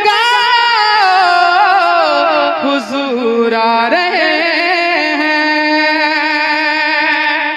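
Wordless devotional singing in naat style. A single voice slides down through ornamented, wavering phrases over the first few seconds, then holds long notes, with no percussion.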